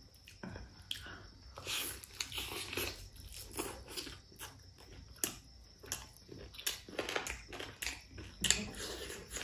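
Close-miked chewing of pork curry and rice: an irregular run of wet mouth smacks and clicks.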